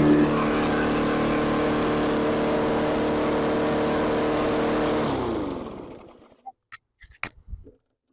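Walk-behind lawn mower's small four-stroke engine, freshly refilled with oil and gas, running steadily, then shut off about five seconds in, its pitch sinking as it winds down to a stop. A few light clicks follow.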